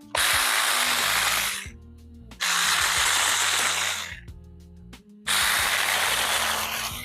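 Saker 20V battery-powered mini chainsaw running in three bursts of about a second and a half each, cutting into thorn-tree branches.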